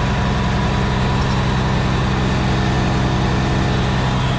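Concrete pump truck's diesel engine running steadily under load while it pumps concrete.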